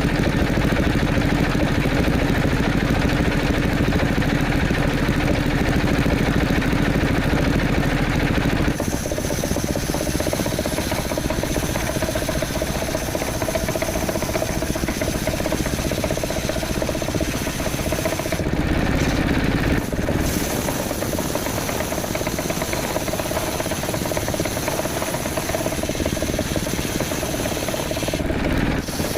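Motor-driven wood saw running steadily, with its tone changing about nine seconds in and again briefly around nineteen seconds.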